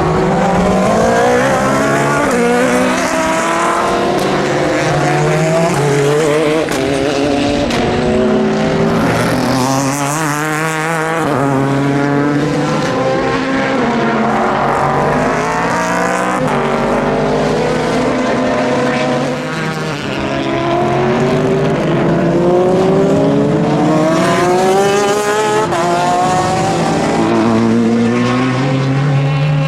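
Several endurance racing cars running past at full race pace with overlapping engine notes. Their engines rise in pitch again and again as they accelerate through the gears, then drop back at each upshift.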